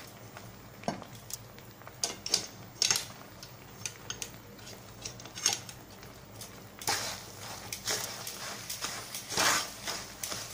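Wooden spatula scraping and knocking against a metal pan while stirring grated coconut and cashews into hot sugar syrup. Scattered clicks and scrapes at first, then denser, steadier scraping from about seven seconds in.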